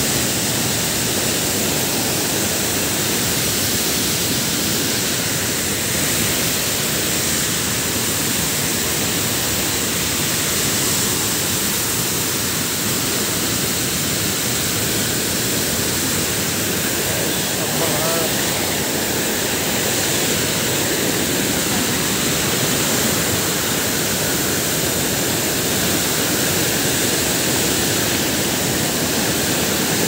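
Waterfall and rapids in high flow: a loud, steady rush of white water pouring over stepped rock ledges.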